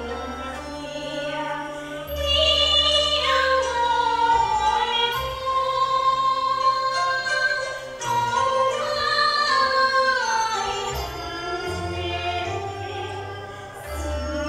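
A woman singing a Teochew opera aria in long phrases with sliding pitch, over an instrumental accompaniment that holds low sustained notes.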